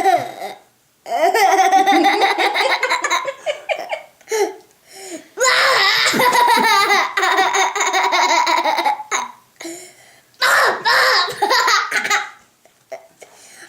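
A young boy laughing hard in three long fits.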